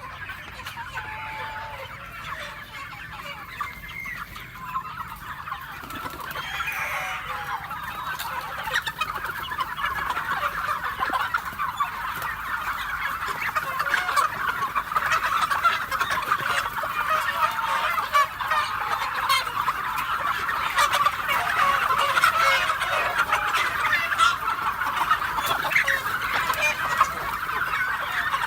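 A flock of free-range chickens clucking, many overlapping calls at once. The flock grows louder and busier over the first half, then keeps up a steady din.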